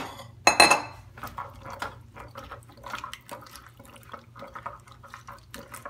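A ceramic clink with a brief ring about half a second in, then wet squelching and knocking of raw potato pieces being tossed by hand in a tomato-and-spice sauce on a plate.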